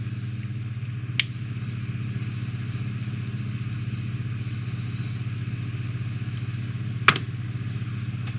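A steady low mechanical hum, with two sharp clicks about a second in and near the end as small screws and model parts are handled.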